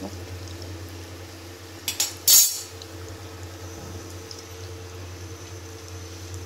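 Donuts deep-frying in a pot of hot oil, the oil bubbling softly over a steady low hum. About two seconds in comes a brief, loud metallic clatter.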